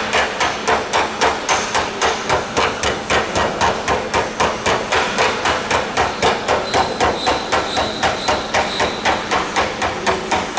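Steady hand hammering, about four sharp blows a second, in an even rhythm.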